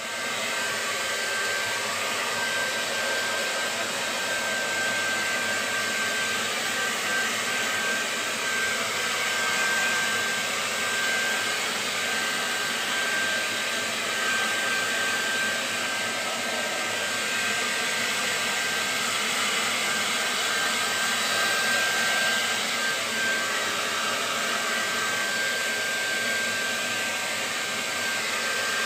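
Handheld hair dryer running steadily, a rush of air with a thin high whine, as it blows on a wet cat's fur.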